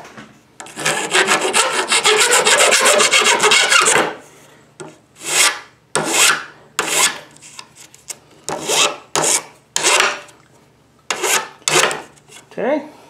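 Hand file rasping on the freshly hacksawed end of a window-screen frame piece to smooth the cut. It starts with a few seconds of quick, continuous short strokes, then goes to about nine slower single strokes.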